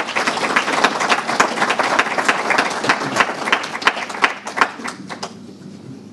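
Audience applauding: many hands clapping, which dies away about five seconds in.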